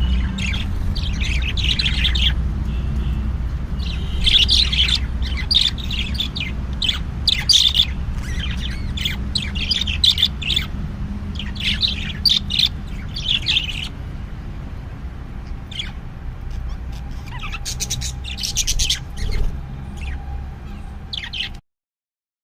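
Budgie chicks chirping and squawking in quick clusters of high calls, over a steady low hum; the sound cuts off shortly before the end.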